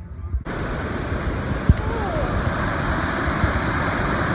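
Swollen, muddy creek in flood, rushing water as a loud steady noise that starts abruptly about half a second in. A single low thump comes a little before two seconds in.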